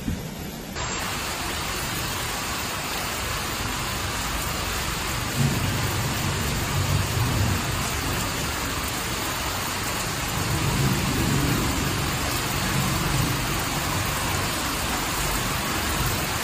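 Heavy rain falling steadily, a dense hiss that sets in just under a second in, with a low rumble that comes and goes twice in the middle.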